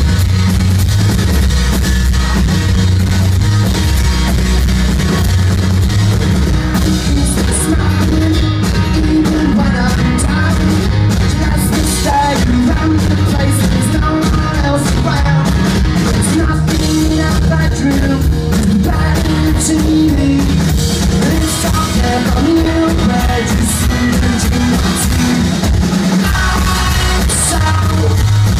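Rock band playing live through a PA: electric guitar, bass guitar and drum kit, with a male lead vocal singing over them, heard loud from within the crowd.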